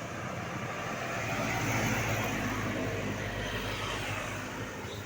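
Road traffic: a motor vehicle's engine and tyre noise swelling to its loudest about two seconds in, then easing off, as it passes.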